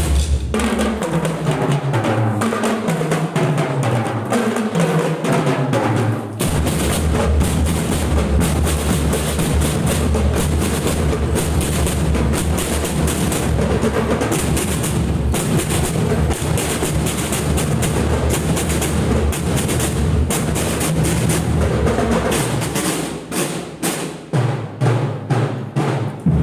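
Marching drum band playing percussion. A falling run of low notes over the first six seconds gives way to dense, full-ensemble drumming with heavy bass drum, which thins with a few gaps near the end.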